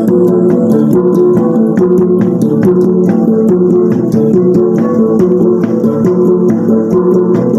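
Murut Timugon gong ensemble playing: tuned gongs ring on several steady pitches, struck in a quick, even, interlocking rhythm of several strikes a second.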